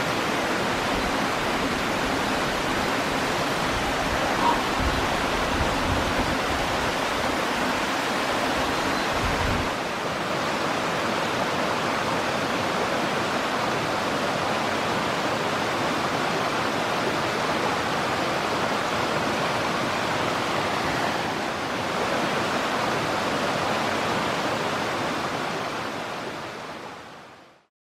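Steady rushing noise with low rumbles during the first ten seconds, fading out just before the end.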